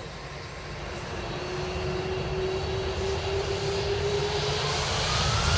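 An Airbus A310-304 MRTT's twin turbofan engines spool up for its departure roll. A low rumble and a whining tone grow steadily louder, and near the end a second, higher whine climbs in pitch.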